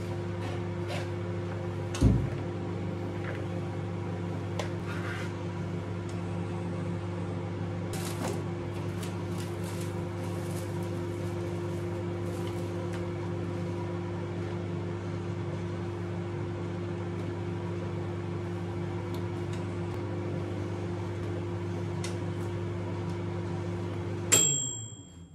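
Microwave oven running with a steady hum, a click about two seconds in. Near the end the hum cuts off with a loud click and a short beep.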